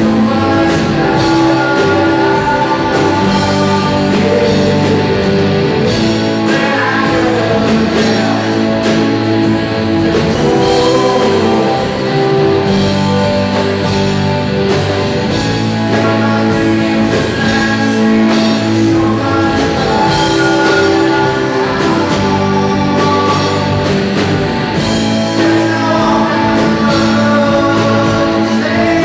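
Live funk-rock band playing: electric guitar, electric bass, keyboards and drum kit, with a man singing over them. The music is loud and continuous, with a steady beat.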